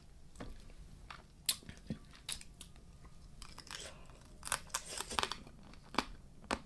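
Close-up eating sounds: chewing a mouthful of Thai spicy blue crab salad, with wet chewing and irregular sharp crunches that come in a cluster a little past the middle.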